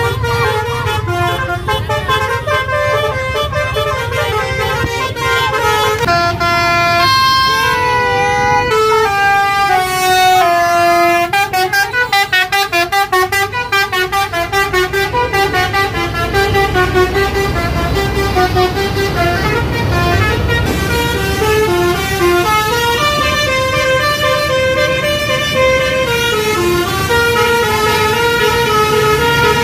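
Bus 'telolet basuri' musical horn playing a tune in held, stepping notes, with a quick run of short repeated notes in the middle, over the low rumble of a bus engine running.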